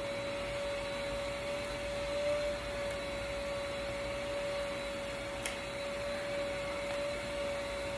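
Steady machine hum: a constant whine over an even hiss, with one sharp click about five and a half seconds in.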